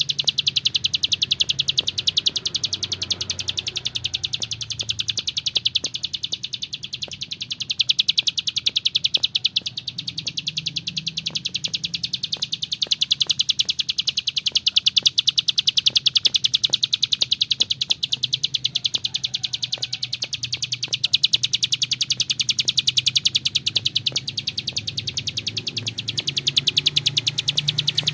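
Ciblek sawah, a small prinia, singing a long, rapid, high-pitched trill of clicking notes that runs on without a break, over a faint low hum.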